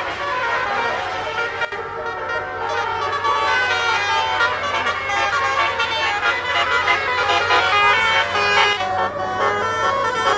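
Basuri telolet multi-tone air horn playing a fast melody of stepping notes. A steady low hum runs beneath it.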